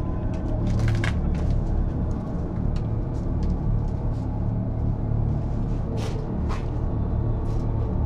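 Dark, suspenseful background score: a steady low rumbling drone with scattered short, sharp clicks and ticks, the clearest about a second in and twice around six seconds.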